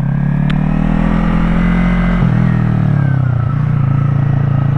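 Yamaha YZF-R3's parallel-twin engine under way: the revs climb and hold. About two seconds in the note breaks briefly, then the revs fall away and settle into a steady lower note.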